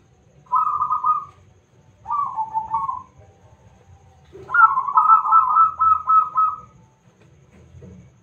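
Zebra dove (perkutut) cooing in three rapid trilled phrases. The last and longest starts about four and a half seconds in and runs for about two seconds.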